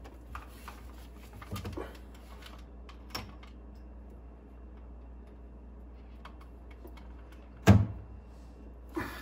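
Rubber hose and plastic bilge pump being handled as the heat-softened hose is worked onto the pump's outlet: a few light knocks and rubbing sounds, then one loud knock about three-quarters of the way in, over a steady low hum.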